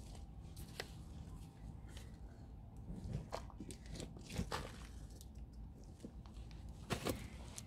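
Hands digging and rummaging through soil in a potato grow bag: scattered soft crunches and scrapes, with a sharper rustle near the end.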